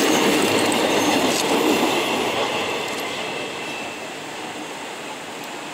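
Empty steel ore gondola wagons rolling past on the rails, wheels clattering with a few faint high squeals. The noise fades away over a couple of seconds as the last wagon moves off.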